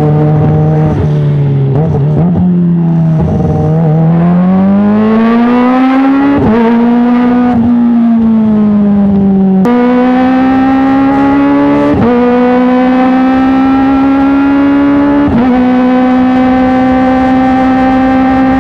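Kawasaki ZX-25R's 250 cc inline-four running through an Arrow Works titanium full-system exhaust. The engine note stays high and climbs slowly, with brief dips in pitch every few seconds.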